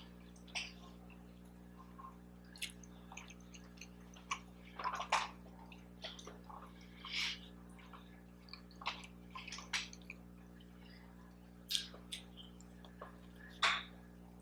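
Close-up chewing and wet mouth sounds of eating a syrup-covered breakfast sausage dog on a soft brioche bun: scattered smacks and clicks at irregular intervals.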